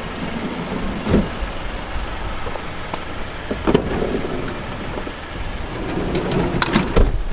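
A car's exterior door handle is pulled and the door opened, with knocks and rustling as someone climbs into the back seat, over steady outdoor noise. The loudest knocks come about a second in, just before the handle is pulled, and near the end.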